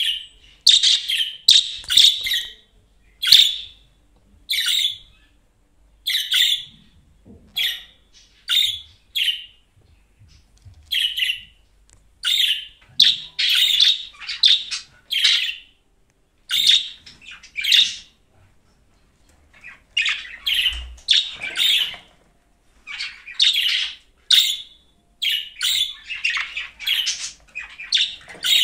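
Budgerigar chirping: short, high chirps in quick clusters, with pauses of a second or two between clusters.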